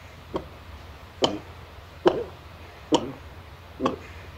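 A person gulping a drink from a plastic bottle: five evenly spaced swallows, a little under a second apart, each a short click followed by a brief gulp.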